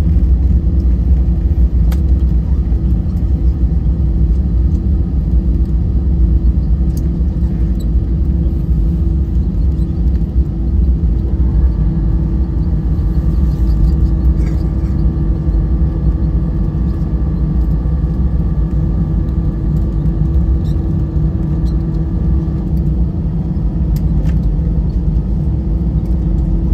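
Airbus A320 cabin noise heard from a window seat: a steady low rumble of the engines and airflow with a constant hum. A higher whining tone joins about eleven seconds in and fades out a little after twenty seconds.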